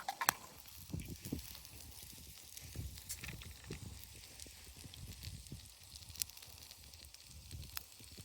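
Campfire crackling with scattered sharp pops, over irregular low thumps and rustling from handling things nearby.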